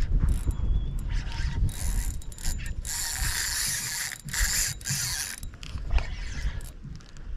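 Baitcasting reel working against a heavy fish that can't be moved, its drag and gears whirring and clicking in spells with short breaks. Under it is a gusty low rumble of wind on the microphone.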